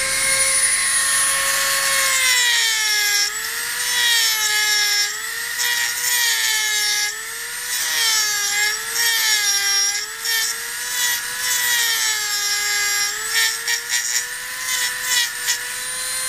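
Dremel rotary tool running at high speed with a carving bit cutting into a wooden CO2 dragster body. Its high whine dips and wavers in pitch each time the bit bites into the wood, with scratchy bursts of cutting near the end.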